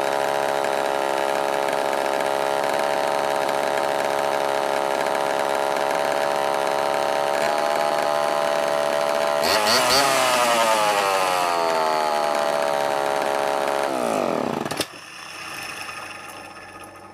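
1974 Homelite XL-12 chainsaw's two-stroke engine running steadily. It is revved once about ten seconds in, and its pitch sinks back. Near the end its pitch falls and it stops abruptly. The engine was revived from non-running and only needed fuel.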